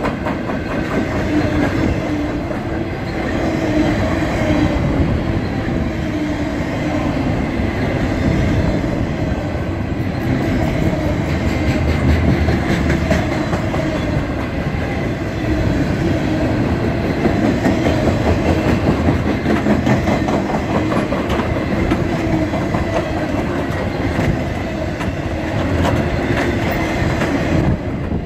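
Loaded railroad flatcars rolling past close by: a steady rumble of steel wheels on rail with rapid clicking as the wheels pass over the rail joints.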